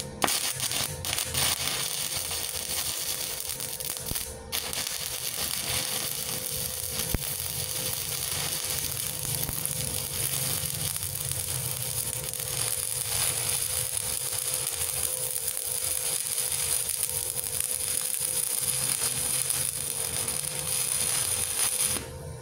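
Stick-welding arc from an IGBT inverter welder set at 80 amps: a steady, smooth crackle and sizzle as the electrode burns, breaking briefly about four seconds in and stopping near the end. The arc sounds even and not harsh, which marks a stable arc.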